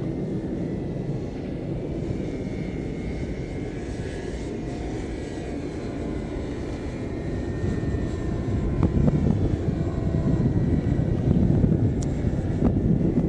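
Radio-controlled model airplanes flying overhead, their motors giving a thin, distant whine that wavers a little in pitch. Under it is a heavy low rumble of wind on the microphone, which grows stronger in the second half.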